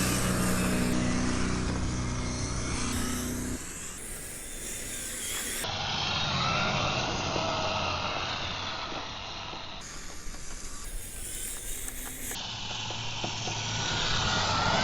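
Kyosho Blizzard RC snow cat, converted to a brushless motor on a 3S LiPo, driving through deep snow: motor whine and tracks churning snow, heard in several short shots that change abruptly.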